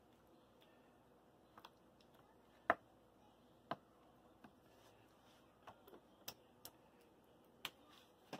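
A wooden spoon spreading pasta sauce in a disposable aluminum foil pan: faint, scattered light taps and clicks, irregularly spaced about a second apart.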